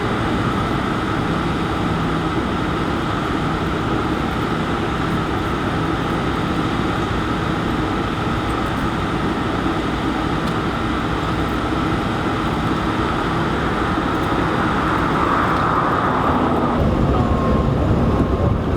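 Steady freeway traffic and vehicle engine noise, a continuous rumble with a faint engine hum running through it. Near the end the low rumble shifts and a thin steady tone joins in.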